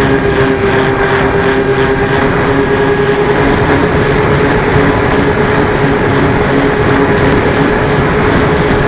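Small engine running at a steady speed, a constant drone, with heavy wind noise on the microphone.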